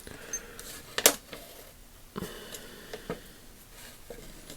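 Small metal ratchet parts being handled on a bench: a few light clicks and taps, the sharpest about a second in.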